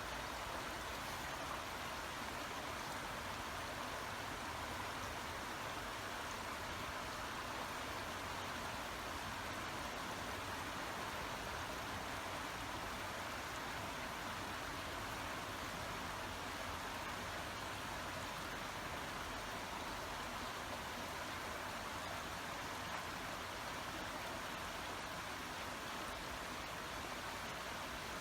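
Babbling brook: water running in a steady, even rush.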